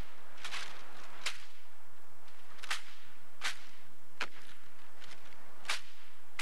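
Sharp slaps and cracks of a drill platoon's rifle manual: white-gloved hands slapping the rifles as they are snapped from position to position, sometimes in quick pairs, about one crack a second at uneven spacing.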